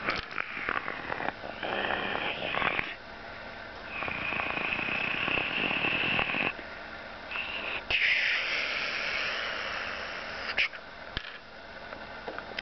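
A person making breathy, rasping mouth sound effects for a toy-figure fight, in several hissing stretches of one to two and a half seconds each, with a couple of sharp clicks near the end.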